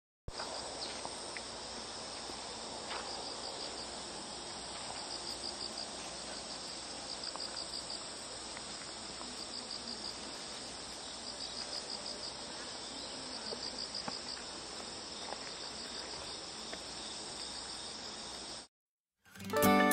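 Insects chirring steadily in summer vegetation, with short trills of rapid pulses recurring every few seconds; the sound stops abruptly near the end.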